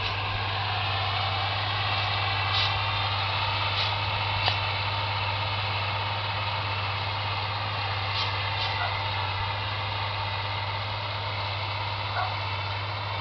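Engine running steadily: a low, even hum with a thin whine above it and a few faint knocks.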